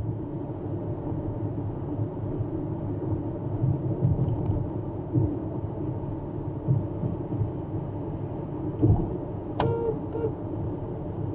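Steady road and engine rumble heard from inside a car cruising at highway speed. Near the end a short, sharp beep sounds, followed by a second brief blip.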